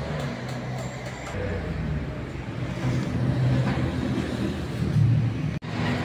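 A vehicle engine running, its low hum swelling and easing, broken off for an instant near the end.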